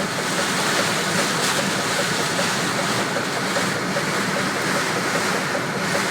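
Heavy storm rain and wind beating steadily on a truck, heard from inside the cab as an even, unbroken rush of noise.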